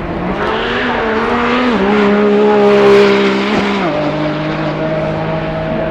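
Lamborghini Revuelto's naturally aspirated V12 driving past under power. The engine note drops sharply twice, about two and four seconds in, as it shifts up a gear each time, and it is loudest near the middle as the car goes by.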